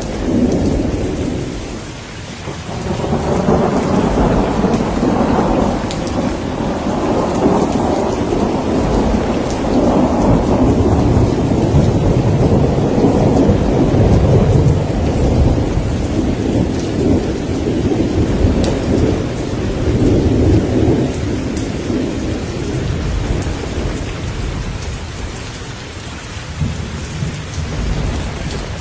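Thunderstorm: steady rain with a long roll of thunder that swells about three seconds in, rumbles on for most of the stretch and dies away, with another rumble starting near the end.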